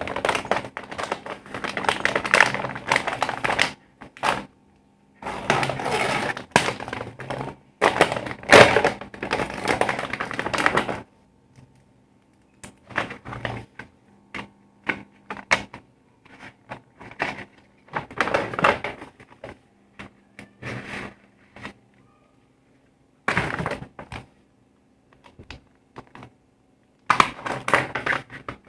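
Packaging being handled and opened: long bursts of crinkling and crackling, then shorter scattered rustles and clicks with pauses between.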